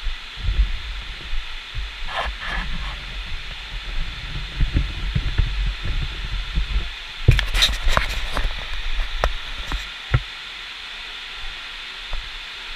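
Irregular low thumps of footsteps and knocks on a body-worn action camera as its wearer walks, over a steady hiss. A few sharp clicks and knocks come about two seconds in, around the middle, and once more a little later.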